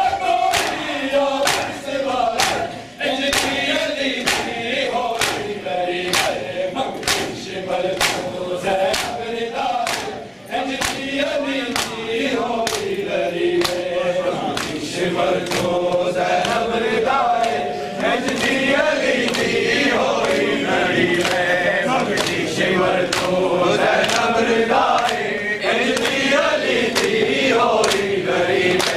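Men chanting a noha lament in unison while the congregation beats their chests in time (matam), giving sharp, even slaps about twice a second under the singing.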